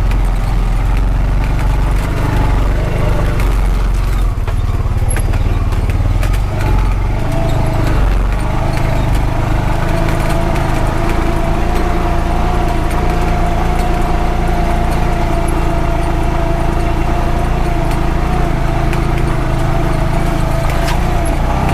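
2021 Honda Pioneer 520 side-by-side's engine running steadily while driving, with scattered rattles and knocks over a rough dirt road. A heavy low rumble dominates the first several seconds, then a steady whine holds from about seven seconds in.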